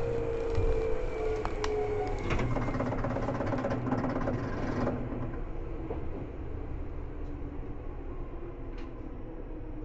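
Seibu 2000 series electric train running, heard inside the car: a traction-motor whine whose pitch falls slowly as the train slows, over a steady rumble with scattered sharp clicks from the wheels and track.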